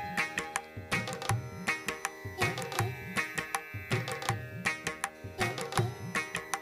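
Indian-style background music led by tabla drumming with a steady rhythm, with held instrument tones underneath.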